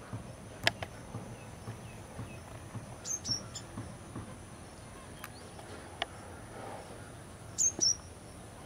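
Quiet outdoor ambience with small-bird chirps: two short high chirps about three seconds in and another pair near the end. A few sharp faint clicks are scattered between them.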